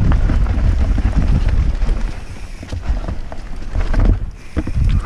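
Mountain bike descending a dirt forest trail: wind rushing over the helmet-mounted microphone and the rumble of the tyres on the ground, with frequent knocks and rattles from the bike over bumps. The noise eases briefly about four seconds in.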